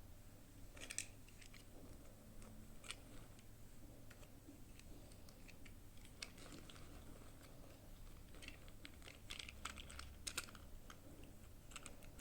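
Faint, scattered clicks and taps of small plastic toy parts and packaging being handled, with a quick cluster of several clicks near the end.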